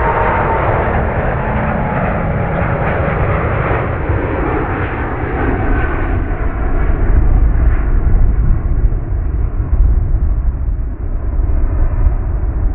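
An Airbus A380-841's four Rolls-Royce Trent 970 turbofans at takeoff thrust as the jet climbs away: a loud, steady jet roar with a whining fan tone at first that fades, leaving a heavy low rumble as the sound grows duller.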